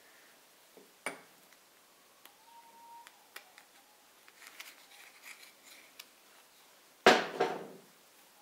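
Light metal clicks and clinks as a steel connecting rod and its bearing cap are handled over the engine block, with one louder metallic clunk near the end.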